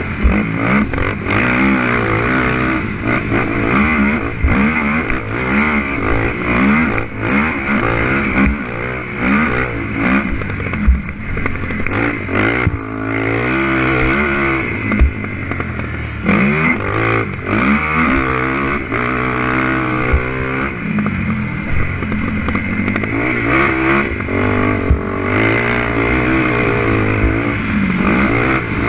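Honda TRX450R quad's single-cylinder four-stroke engine revving hard, its pitch climbing and falling again and again as the rider throttles on and off around the track. A few sharp knocks are heard along the way.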